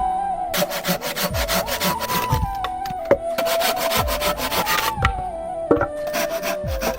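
Wood being sawn by hand in rapid back-and-forth strokes: two runs of about two seconds each, stopping about five seconds in.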